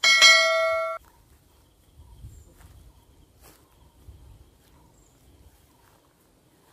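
Notification-bell sound effect from a subscribe banner: a bright chime of several ringing pitches, held for about a second and then cut off abruptly. Faint low rustling follows.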